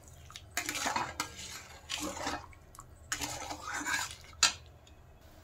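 Flat steel spatula stirring and scraping around a metal kadai of thin tamarind sauce, in four or so separate strokes, with a sharp clink of metal on metal near the end.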